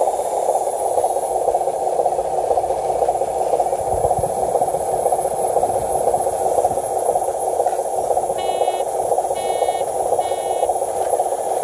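A steady whirring noise, typical of a small RC model machine's motor and gearbox running, with three short electronic beeps about a second apart near the end.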